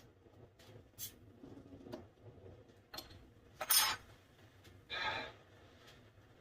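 A few light clicks and knocks of handling, then two sharp sniffs, the first the louder, about a second apart: a person smelling hard cider from the glass.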